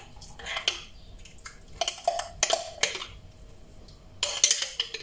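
A metal spoon clinking and scraping against a jar and a bowl as whole-grain mustard is scooped out and added, in a few irregular clusters of light taps.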